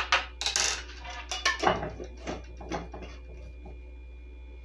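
Metal measuring spoon tapping and clinking against a glass mixing bowl and small spice jars: a quick, irregular run of clicks over the first three seconds, over a steady low hum.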